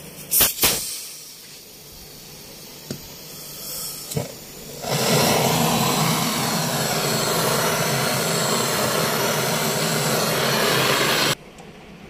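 Handheld gas torch burning with a loud, steady hiss for about six and a half seconds, then cut off abruptly. A few sharp clicks come before it.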